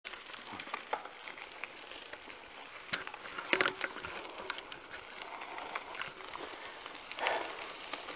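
Caloi XRT bicycle rolling over a rough dirt road: tyres crackling on grit, with scattered small clicks and rattles from the bike and a short rush of noise near the end.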